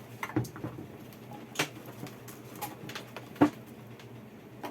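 Scattered clicks and knocks of equipment being handled while a speaker is set up for testing, about half a dozen, the sharpest about three and a half seconds in.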